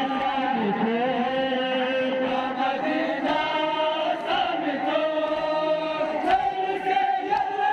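Men's voices chanting a noha, a Shia Muharram lament, with long held notes.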